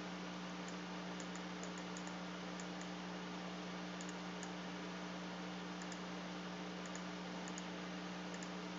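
Scattered faint clicks from working a computer by mouse and keys, over a steady low electrical hum.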